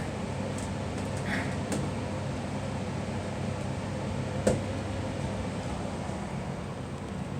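Steady low hum and background noise, with one sharp knock about four and a half seconds in.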